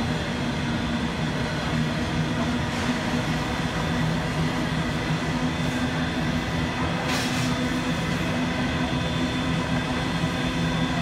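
Locomotives standing at a station platform: a steady low engine hum with faint high steady tones above it, and short hisses about three and seven seconds in.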